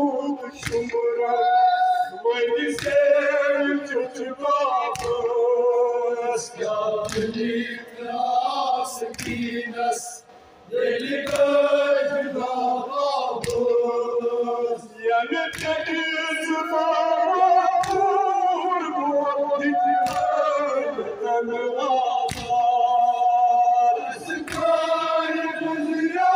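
Men singing a Kashmiri noha, a Muharram mourning elegy: a lead reciter on a microphone and others joining in. Sharp slaps of chest-beating (matam) fall about once a second through the singing.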